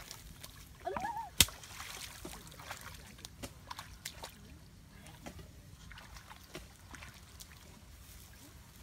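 Splashing and sloshing in shallow, muddy paddy water as people wade and a stick jabs at fish, with one sharp smack about a second and a half in and a short vocal exclamation just before it. Scattered small splashes and ticks follow.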